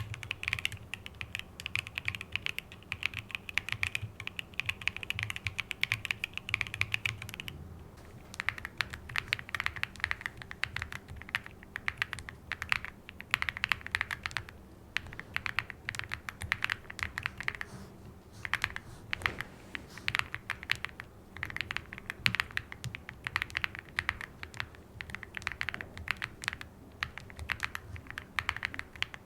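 Fast typing on a mechanical keyboard fitted with Cupid switches: a continuous stream of key clacks, with brief lulls about seven and eighteen seconds in.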